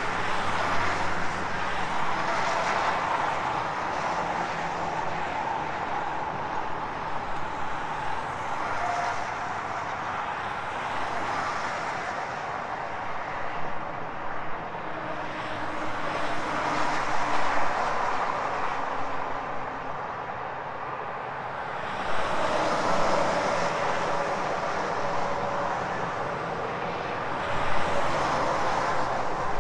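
Highway traffic: cars and trucks passing on a multi-lane road, a steady tyre-and-engine rush that swells each time a vehicle goes by. Near the end a tractor-trailer passes close and the noise rises.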